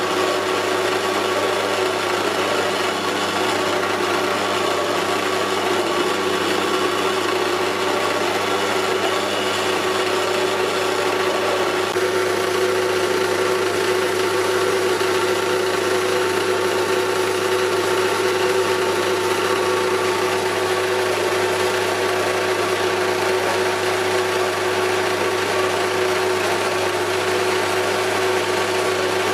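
Sealey metal-cutting bandsaw running steadily, its blade sawing through a metal plate clamped in the vise.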